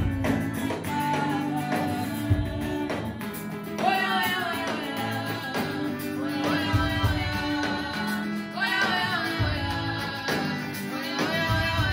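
A choir of women singing a song together, backed by a band with bass, guitar and a beat.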